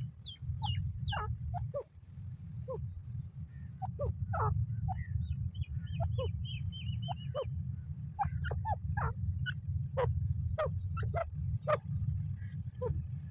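Francolin (teetar) calls: many short notes that sweep down in pitch, a few a second, with a run of thin high notes about two seconds in and a quick chattering string of notes around six seconds in. A steady low rumble runs under them.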